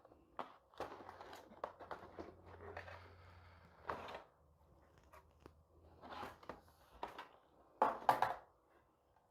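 Faint rustling, crinkling and small clicks of computer parts and their packaging being handled, with louder rustles about four, six and eight seconds in.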